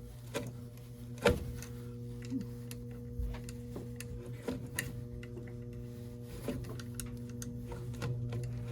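Steady electrical hum from the furnace, with irregular clicks and taps of hands and tools on its sheet-metal parts and one sharper knock about a second in.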